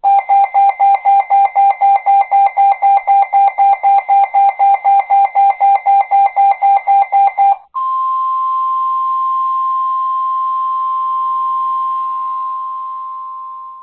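A NOAA weather radio receiver sounding its alert: rapid electronic beeping, about four beeps a second, for about seven and a half seconds. The beeping then switches to the long steady Weather Radio warning alarm tone at 1050 Hz, which fades near the end. This tone is the sign that a warning, here a high wind warning, is being broadcast.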